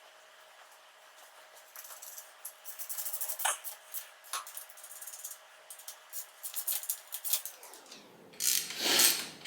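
Light clicks and rattles of small metal parts and tools being handled at a workbench, with louder scraping and clattering near the end. A faint steady hum stops about seven seconds in.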